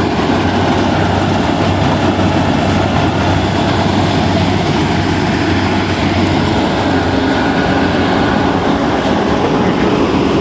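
Yanmar YH850 rice combine harvester running steadily under load, an even mechanical noise over a constant low engine hum.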